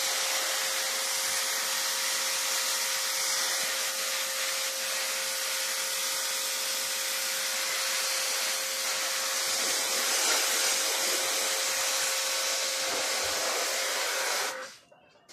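Pressure washer jetting water onto a wooden garden table: a loud, steady hiss of spray over the machine's constant motor tone, cutting off suddenly near the end.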